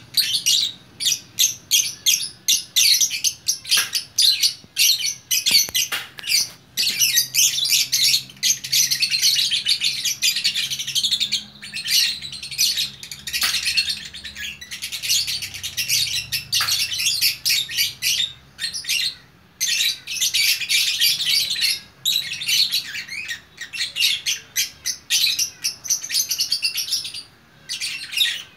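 A lovebird in full, continuous song: long runs of rapid, shrill chattering chirps, broken by short pauses of a second or less.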